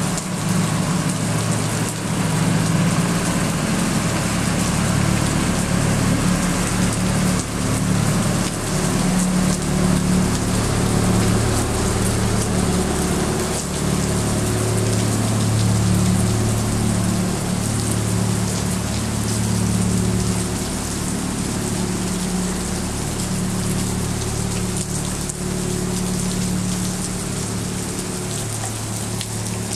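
Steady heavy rain falling on wet pavement, with a steady low hum underneath that swells and fades slowly.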